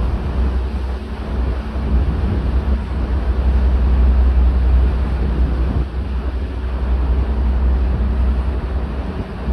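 A First Fleet class ferry's MTU Series 60 diesel engines running underway: a steady low drone with faint engine tones, under the wash of water and wind buffeting the microphone on the open deck.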